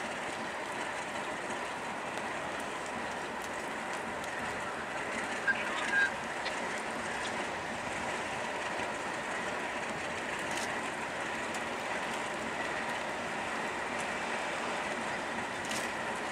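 ALCO RS3 diesel locomotives running at low throttle as they pull a passenger train slowly along, a steady rumble and hum. Two short squeaks come about five and a half and six seconds in.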